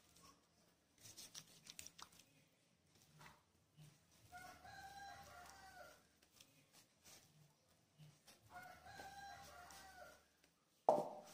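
A rooster crowing twice, faintly, each crow about a second and a half long, over soft rubbing and clicks of hands working oiled bread dough. A sudden knock near the end is the loudest sound.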